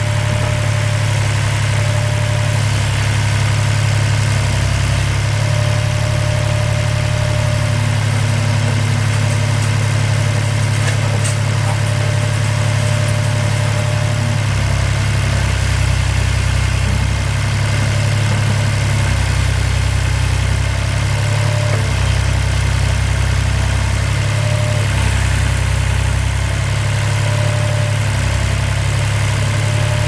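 The John Deere four-cylinder diesel engine of a Vermeer V450 trencher/backhoe running steadily.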